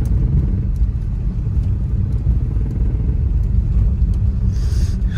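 Steady low rumble inside a moving car, with wind buffeting the microphone.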